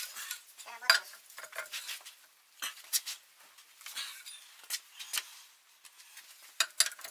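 Steel four-way cross lug wrench clinking and knocking against the wheel nuts of a Toyota Land Cruiser Prado 120 as it is fitted on and turned: scattered sharp metal clinks, the loudest about a second in and twice near the end.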